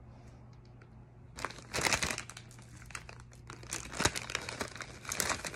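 Thin clear plastic jewelry bags crinkling as they are handled and jewelry is pulled out of them, in irregular bursts that start after about a second and a half of quiet, with a sharp crackle about four seconds in.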